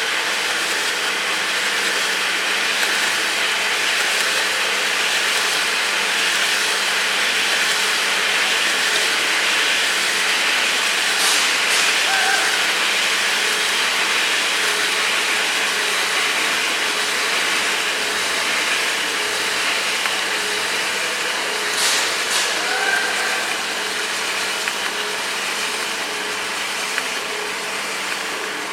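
Ascot S1300 industrial wood brushing and distressing machine running steadily: a constant hiss over a steady motor hum. A sharp tick comes about eleven seconds in and another about twenty-two seconds in.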